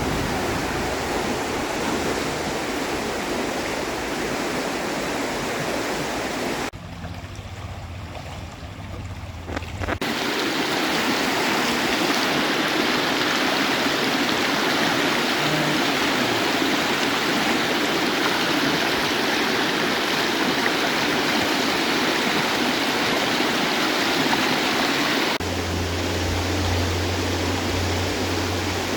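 Fast-running river rushing as a steady, even wash of water noise, dropping quieter for about three seconds near the start and shifting again near the end.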